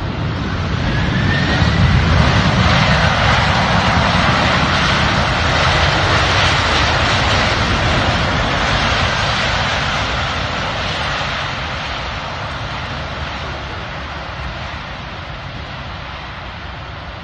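Lockheed C-5M Super Galaxy's four General Electric F138 (CF6-80C2) turbofan engines running loud as the jet rolls out on the runway after touchdown. The roar swells over the first couple of seconds with a faint rising whine, then slowly fades.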